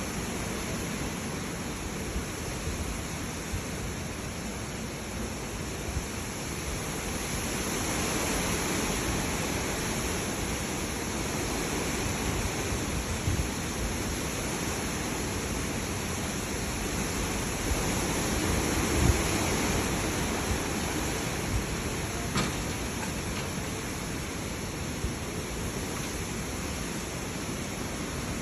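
Heavy rain and wind of a severe storm, a steady rush that swells louder twice, about a quarter of the way in and again past the middle.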